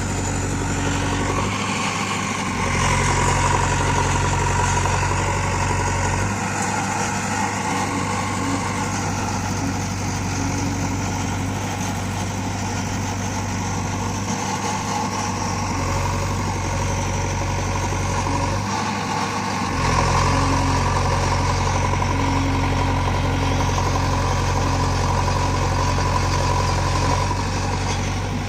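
JCB 3DX backhoe loader's diesel engine running steadily, its pitch stepping up and down several times. It gets louder about three seconds in and again about two-thirds of the way through.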